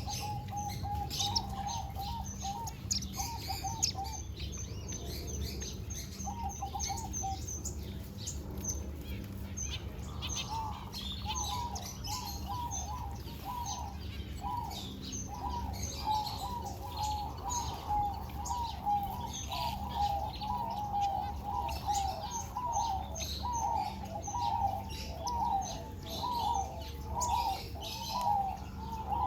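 A group of small seed-eating birds chirping and twittering continuously, with quick runs of repeated notes and sharper high chirps over them.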